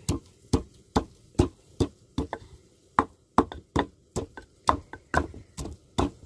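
Wooden pestle pounding in a wooden mortar, crushing roasted tomatoes and greens for chutney. The dull knocks come at a steady rhythm of about two to three a second.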